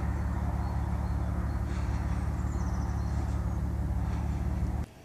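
A motor vehicle engine running steadily with a deep, even hum that cuts off abruptly near the end, leaving much quieter outdoor background.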